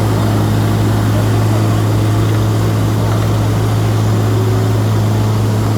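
Heavy paving machinery engine running steadily, with a strong, constant low hum.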